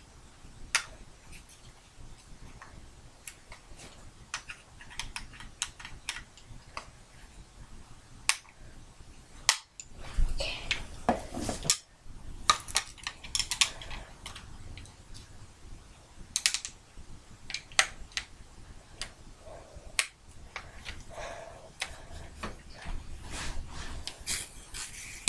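Scattered sharp clicks and plastic rattles from a toy electronic drumstick being handled while its battery compartment is opened with a small screwdriver, with denser clicking about ten seconds in and again near the end.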